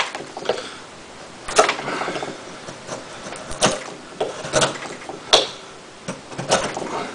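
Folding knife blade carving into a clamped block of softwood: about ten short, sharp scraping cuts at an uneven pace, one near the two-second mark drawn out longer. The cuts take only little pieces, a sign of the 8Cr13MoV blade biting poorly into the wood.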